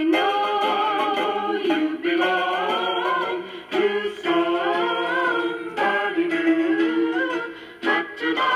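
A vocal record playing through the small built-in speaker of a 1955 Philco all-transistor portable record player: a singer holds long notes with a wavering vibrato, in phrases of about two seconds. The sound is thin, with little treble.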